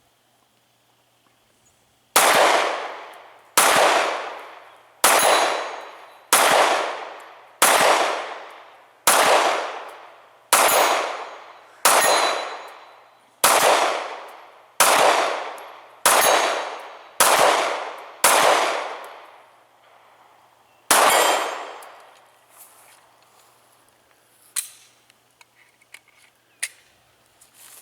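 Glock 19 Gen 4 9mm pistol, fitted with a tungsten guide rod, fired fourteen times. Thirteen shots come at a steady pace about a second and a half apart, each ringing out and echoing, then a single shot follows after a short pause. A few faint clicks come near the end.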